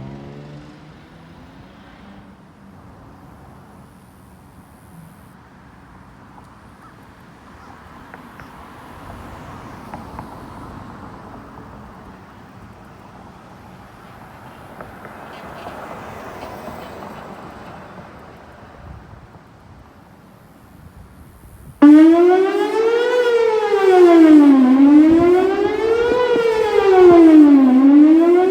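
Faint background noise, then about three-quarters of the way through a Whelen WPS-4008 electronic outdoor warning siren starts suddenly at full volume, sounding a fast wail that rises and falls about every three seconds. Its rotator is stuck facing one way, so the loudness holds steady instead of swelling and fading as it would if it turned.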